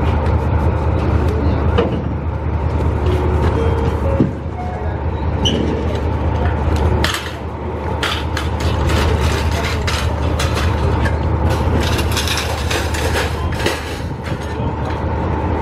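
Steady low machine drone of the standing train, with clatter and knocks of cardboard boxes and metal hand trolleys being handled, thickest in the second half.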